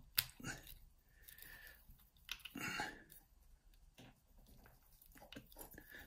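Faint scraping and clicking of a screwdriver tip twisted in the hacksaw cuts of a half euro cylinder lock, prising at a thin slat of metal to pop it out. The loudest scrape comes about two and a half seconds in, with a few small clicks near the end.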